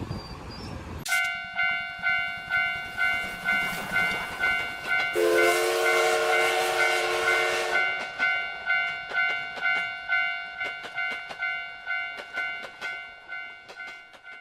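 Japanese railroad crossing warning bell starting suddenly and ringing its repeating "kan-kan" about twice a second. A few seconds in, a train's horn sounds a chord for about three seconds over a rush of noise. The bell rings on and fades away near the end.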